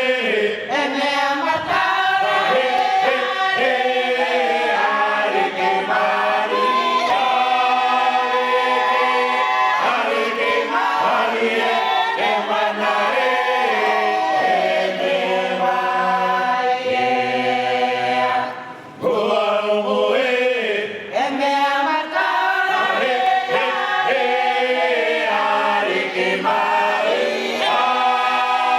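Cook Islands church choir singing a Cook Islands Māori song, many voices together, with one short break for breath about two-thirds of the way through.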